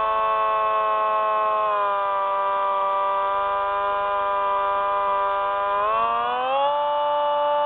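Quadcopter drone's electric motors and propellers whining at a steady pitch. The pitch drops slightly about two seconds in and glides up near the end as the motors speed up.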